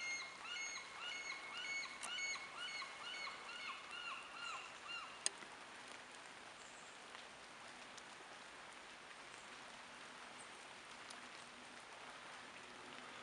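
Harlequin duck giving a run of squeaky whistled notes, about two to three a second, that stops about five seconds in. A single sharp click follows, then only a faint steady wash of water.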